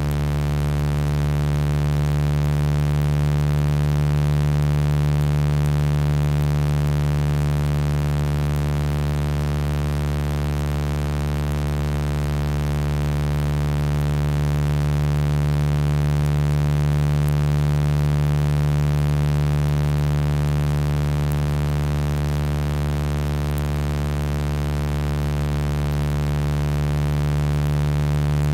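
Steady, low electronic sound-healing tones: a deep, unbroken hum of several held pitches that slowly swells and eases in loudness. The tones are personalized frequencies generated by software from a voice sample of a spoken affirmation.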